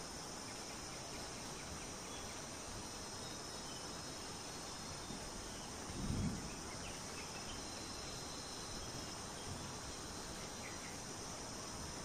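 Steady chorus of insects such as crickets, an even high buzz that does not change. About halfway through there is one brief low thump.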